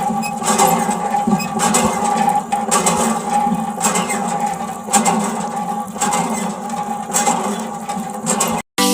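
A small motor running steadily with a faint regular pulsing, cut off abruptly near the end.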